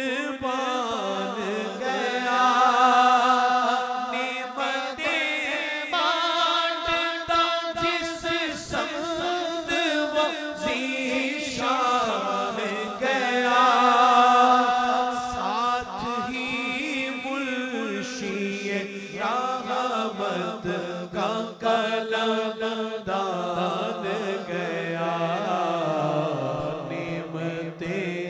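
Male naat reciter singing long, drawn-out melodic lines into a microphone. A second man's voice joins in, over a steady low drone.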